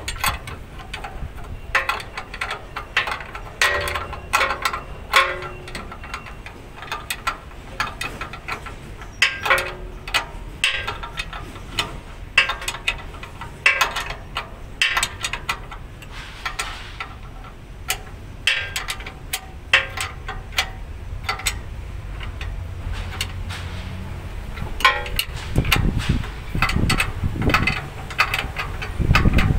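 Hand tools and metal parts clinking and tapping at a truck's air-brake chamber and slack adjuster: an irregular string of sharp metallic clicks with brief ringing. A low rumble comes in near the end.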